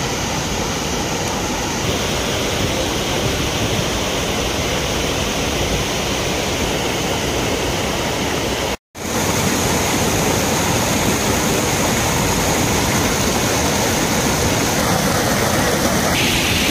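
Steady rush of flowing water. It cuts out for a moment about nine seconds in.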